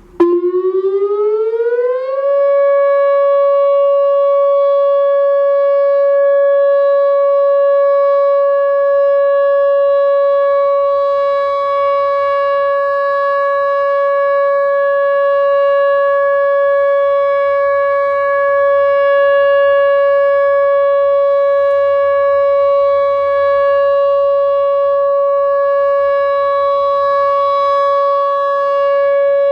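Whelen WPS 2908 electronic outdoor warning siren starting up just after the start. Its pitch rises for about two seconds, then it holds one loud, steady tone.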